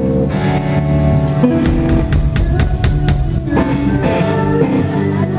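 Live rock band playing: distorted electric guitar chords over drum kit hits, with a run of evenly spaced drum strikes in the middle.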